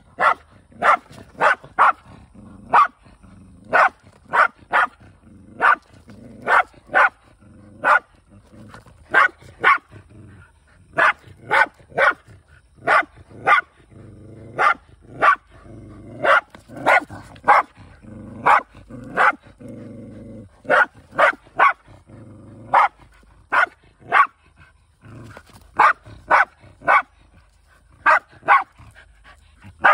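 A dog barking over and over in short, sharp barks, about one or two a second in uneven runs with brief pauses, at a small animal that another dog has caught and is holding.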